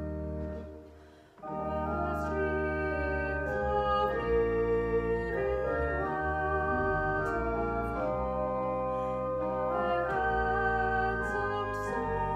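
Pipe organ playing a hymn in held chords, breaking off briefly about a second in and starting again, with a woman's solo singing voice over it.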